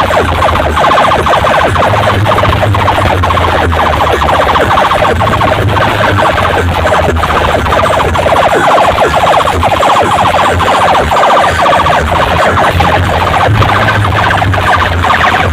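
Very loud siren-like electronic warble played through a large DJ sound system's speakers, with a rapidly repeating tone over heavy bass that fades midway and comes back near the end.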